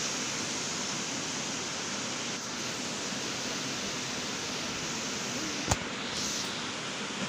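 Steady rush of water pouring over a low concrete weir into the pool below, with one sharp click a little over five seconds in.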